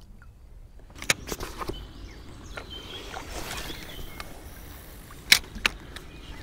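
Handling noises from an angler in a kayak: scattered clicks and light knocks over a faint water-and-outdoor haze, with two sharper knocks near the end.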